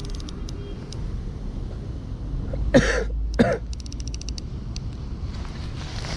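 A man coughs twice in quick succession, about half a second apart, over a steady low rumble of wind on the microphone; a quick run of faint clicks follows.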